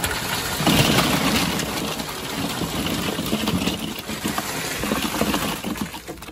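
A load of boiled crawfish sliding out of the boiler basket and pushed with a paddle across a stainless steel dump tray: a dense, continuous clatter of many hard shells against metal. It starts suddenly and dies away near the end.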